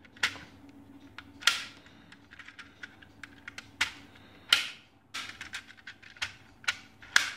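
Plastic parts of a CrossTeaser puzzle clicking and clacking as the clear ball is turned and its pieces slid: irregular sharp clicks, a handful of louder ones with lighter ticks between.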